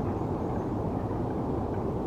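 Steady low rumble of distant city traffic, with a few faint, short high chirps over it.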